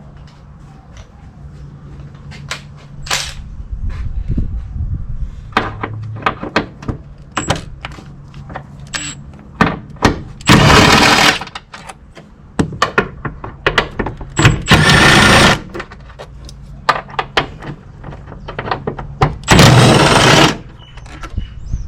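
A power ratchet runs in three bursts of about a second each, spinning out fasteners on the air intake, amid scattered clicks and knocks of hand tools and plastic parts.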